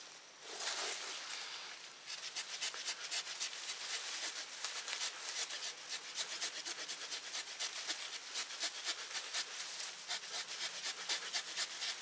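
The small wood-saw blade of a Swiss Army knife sawing through a green sapling. From about two seconds in it rasps back and forth in quick, even strokes, about three a second.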